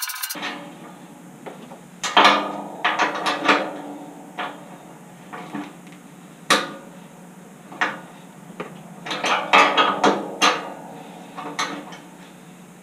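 Irregular metallic clinks and taps of a combination wrench working steel nuts on a snow plow's spring bolt, locking one nut against the other. There is a sharp clink about two seconds in and a quick run of clinks near ten seconds.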